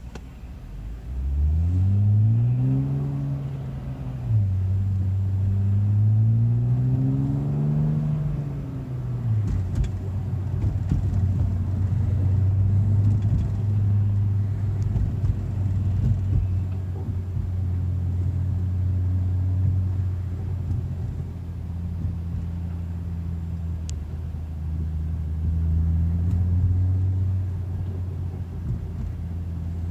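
BMW M235i engine pulling away. The revs rise twice, each climb ended by a sudden drop like a gear change, then the engine runs fairly steadily at a constant pitch with small rises and dips.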